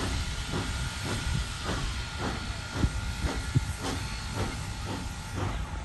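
Clover Valley Lumber Co. No. 4 steam locomotive working under load, its exhaust chuffing in an even beat of about three a second, over a steady hiss of steam and the rumble of the train.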